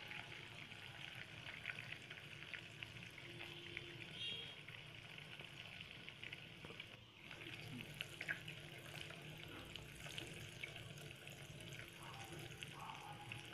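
Butter bubbling in a steel pot as it cooks down into ghee: a faint, steady sizzle of fine crackles and pops as its water boils off. Near the end a spatula is stirred through it.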